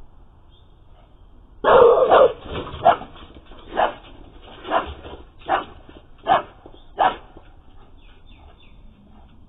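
Dog barking: a loud burst of barks about two seconds in, then six single barks at roughly one-second intervals.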